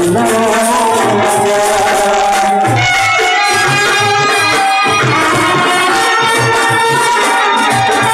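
Loud music with a steady drum beat and a melody, played through the horn loudspeakers of a procession band cart.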